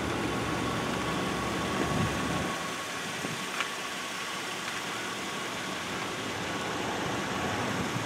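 Steady outdoor background noise with a faint steady high hum, and a low rumble that drops away about two and a half seconds in.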